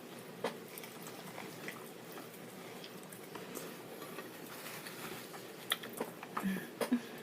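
Soft chewing with scattered small mouth clicks and wet squishes, with a few sharper clicks near the end.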